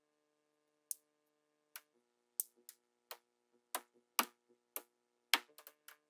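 Small magnetic balls clicking as they snap onto a magnet-ball structure: about a dozen short, sharp clicks at an uneven pace, several in quick succession near the end.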